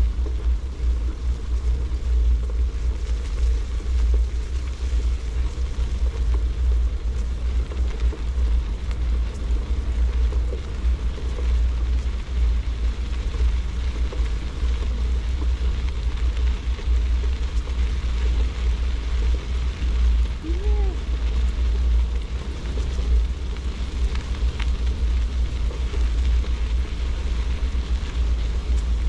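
Wind buffeting the microphone of a moving camera: a steady, fluctuating low rumble. A brief pitched glide comes about twenty seconds in.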